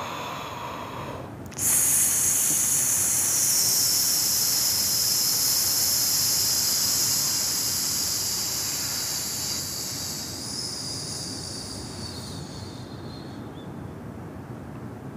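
A woman's short inhale, then one long hissing exhale of about eleven seconds that starts abruptly and slowly fades. It is the forceful exhale of a diaphragmatic core breath, pushed out while the abdominal muscles contract.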